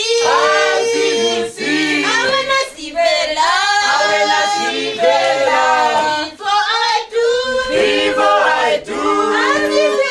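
A group of men and women singing together a cappella in harmony, a choir-style serenade with held notes and short breaks between phrases.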